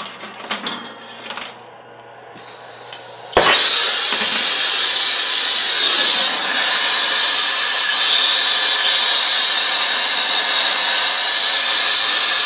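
Air-acetylene torch with a number 3 tip lit with a pop about three seconds in, then burning with a steady loud hiss and a thin high whistle. A few light clicks and knocks of handling come before it.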